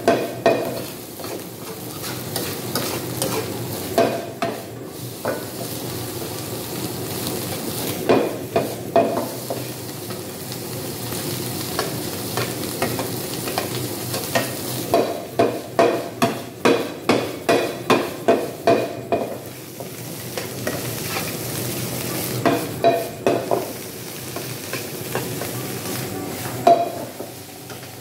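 Egg fried rice sizzling in a pan over a gas flame while a slotted metal spatula scrapes and turns it against the pan, in bursts of quick strokes, the longest run about halfway through.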